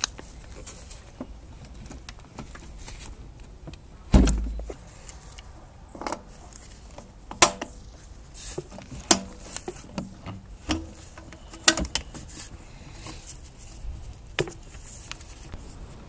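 Metal tools clicking and knocking against spring hose clips and engine parts as the clips on a turbo intercooler pipe are worked loose with an adjustable wrench and pliers. The loudest sound is a heavier low thump about four seconds in.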